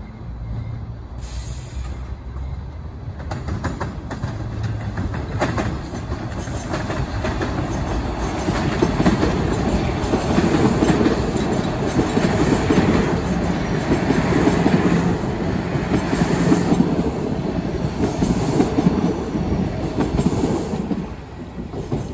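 Toronto Rocket subway trains passing close by on open track: wheels running and clacking over the rails, with high-pitched wheel squeal that comes and goes. The sound builds to its loudest in the middle and drops off near the end.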